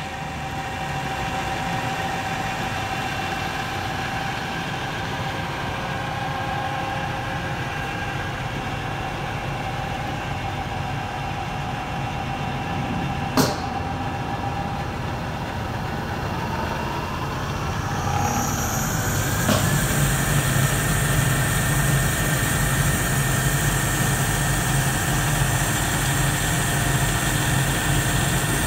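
Hardinge HLV-H toolroom lathe: a steady machine hum, then a sharp click from a control-panel button about halfway through, after which the spindle winds up with a rising whine over two or three seconds and settles into running at speed, louder and with a steady high tone. A second, smaller click comes shortly after it reaches speed.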